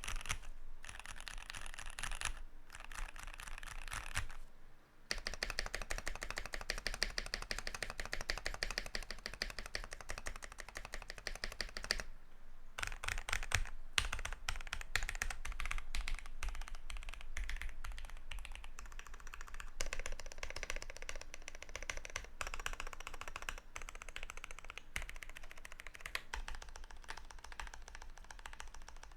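Fast typing on a custom 65% mechanical keyboard with lubed and filmed Durock Light Tactile switches, a brass plate and PBT keycaps, a dense run of keystroke clacks with brief pauses about four and twelve seconds in.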